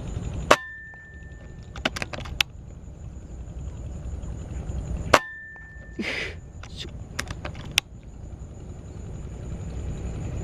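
Air rifle fired twice, about five seconds apart. Each shot is a sharp crack followed by a brief ringing tone, then a few quick metallic clicks.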